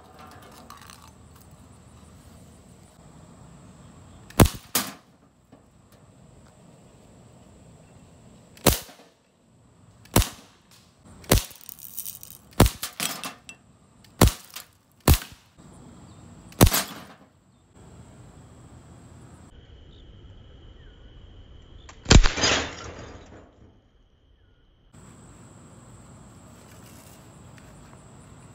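Metal BB gun firing about a dozen shots at irregular intervals, several in quick succession in the middle. The BBs crack into glass and plastic bottles. About 22 s in, one louder hit is followed by a second of breaking and clattering pieces.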